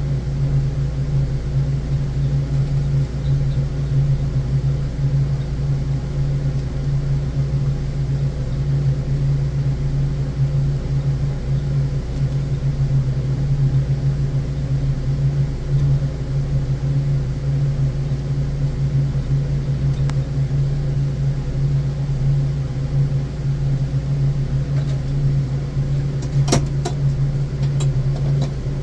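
Steady low hum of running machinery, unchanging throughout, with a few short clicks near the end.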